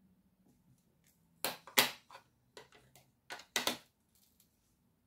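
A run of about six sharp taps and knocks within two seconds, loudest at the start: a clear rubber stamp on an acrylic block being inked and pressed to stamp a greeting onto card.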